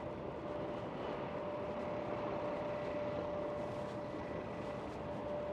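City street traffic: a steady rush of vehicle noise with a steady whine running through it.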